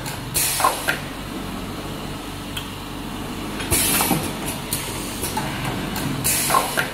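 A dual-head spin welding machine running through its automatic cycle: three short hisses of compressed air from its pneumatic cylinders, about every two and a half seconds, over a steady machine hum.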